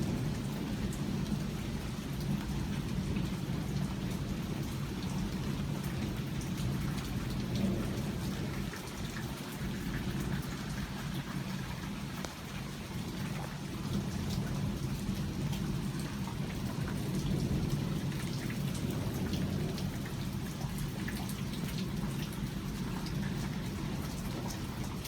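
Steady heavy rain pattering on surfaces in a thunderstorm, with thunder rumbling low underneath it.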